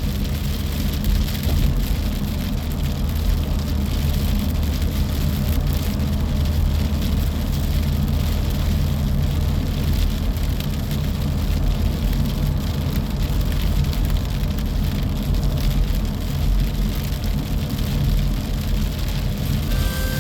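Coastal storm wind and rain: a steady rushing hiss with a patter of raindrops, over a constant low rumble and hum.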